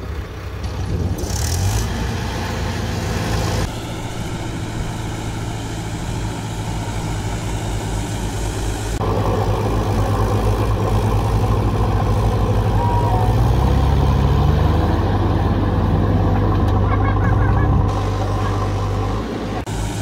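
Diesel engines of a Mahindra 475 DI tractor and a JCB backhoe loader running under load as they work the tractor free of deep mud. The engine note gets louder about nine seconds in, rises in pitch a few seconds later, and eases off just before the end.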